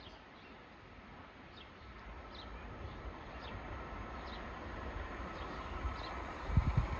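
A train approaching, its rumble and rail noise growing steadily louder, while a small bird chirps repeatedly with short high notes. A few low thumps come near the end.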